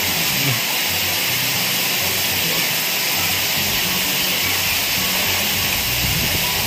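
Steady rushing hiss of hot-spring water flowing and splashing into an outdoor pool, with soft background music of low, sustained notes underneath.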